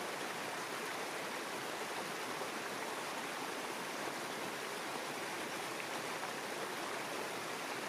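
Small rocky stream tumbling over a low cascade of stones: a steady, even rush of water.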